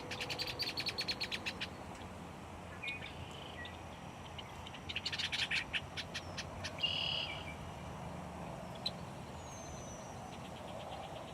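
Birds calling: two rapid chattering series of sharp notes, one near the start and one around the middle, followed by a short higher call.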